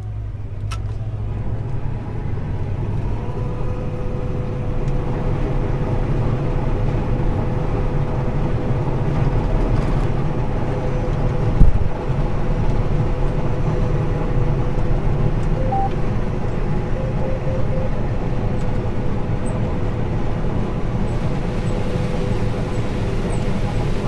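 John Deere combine running under load, heard from inside the cab, as its corn head feeds into standing corn: a steady low drone with a steady whine that sets in a few seconds in. A single sharp knock about halfway through.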